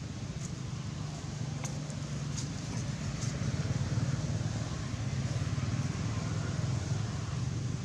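A steady low rumble, such as a distant engine makes, with a few faint, brief clicks in the first few seconds.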